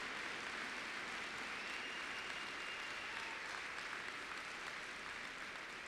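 Large audience applauding steadily, the clapping tapering off toward the end.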